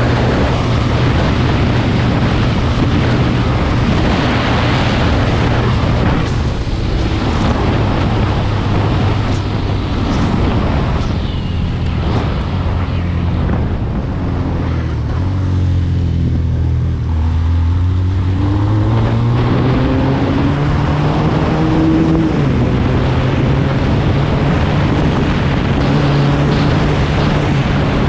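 SMC Barossa 250 quad's 250 cc twin-cylinder engine running under way, with wind rushing over the microphone. Around the middle the engine pitch sinks as the quad slows, then climbs again as it accelerates, with a sudden drop in pitch about 22 seconds in, a gear change.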